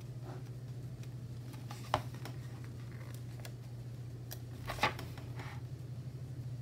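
Light paper handling: a sticker being peeled off a glossy sticker sheet and pressed down onto a planner page. There is a sharp tap about two seconds in and a short burst of crackling clicks near the five-second mark, over a steady low hum.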